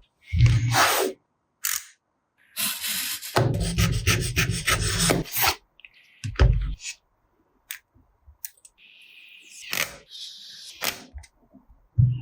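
Cardboard and plastic packaging of a phone box being handled and opened: rubbing and scraping with dull knocks and a few sharp clicks, in separate bursts with silence between them.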